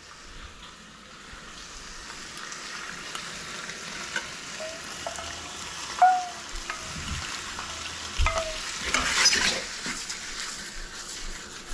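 Rigatoni, ragù and starchy pasta water sizzling in a hot stainless skillet while a wooden spoon stirs and scrapes it, with a few short squeaks and a knock from the spoon on the pan. The sizzle swells briefly about nine seconds in as the pan is tossed.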